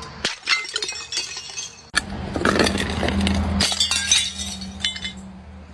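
Glass bottles smashing, with sharp breaks about a third of a second and two seconds in, followed by a dense run of glass shards clinking and rattling.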